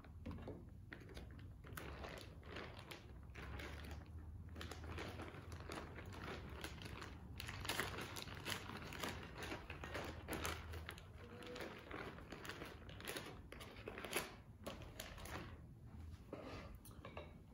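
Plastic zip-top bag crinkling and rustling as it is squeezed and handled to empty a soft Oreo and cream cheese dough into a glass bowl: faint, irregular crackles.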